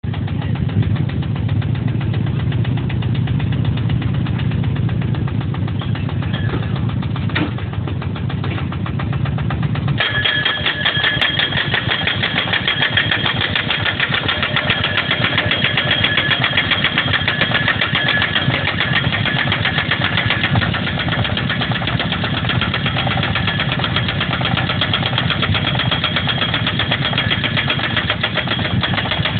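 Hammer pile driver's engine running steadily. About a third of the way through, the hammer starts up and strikes in a rapid, even clatter with a metallic ringing, as when driving a steel guardrail post.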